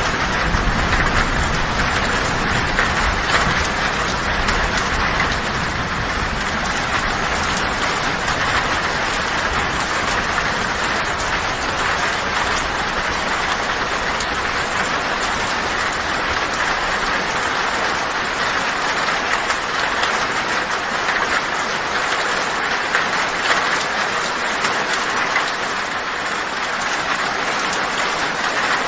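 Heavy rain drumming steadily on a tin (corrugated metal) roof, a dense patter of drops. A low rumble of thunder dies away over the first several seconds.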